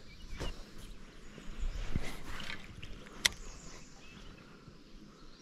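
Quiet handling noises from a spinning rod and reel being worked, with one sharp click about three seconds in.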